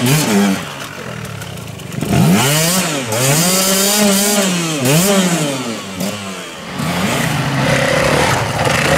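Dirt bike engine revved hard in several rising and falling bursts as the bike is bogged in a deep muddy rut, its rear wheel spinning and throwing mud.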